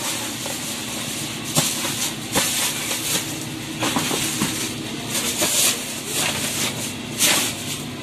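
Thin plastic carrier bags rustling and crinkling in several short bursts as bagged boxed meals are handled and set down in a vehicle's cargo bed, over a steady low hum.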